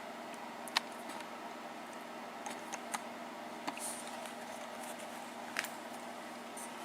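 A handful of light, sharp clicks and taps as small brass lock pins and tools are handled on a bench, over a steady low hum.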